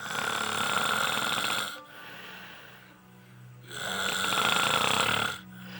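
A person snoring heavily: two long snores about four seconds apart.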